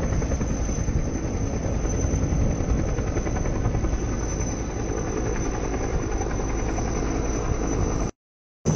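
An Indian Army HAL Dhruv helicopter hovering low, its rotor and twin turboshaft engines running as a steady, dense rumble with a thin high whine above it. The sound cuts out completely for about half a second near the end.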